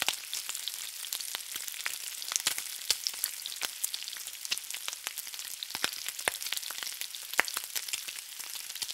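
Steady crackling hiss, full of irregular sharp pops and clicks, the kind of crackle heard from frying or static.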